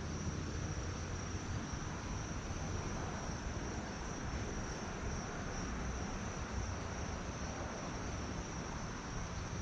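Steady, high-pitched insect chorus, likely crickets, over a low rumble.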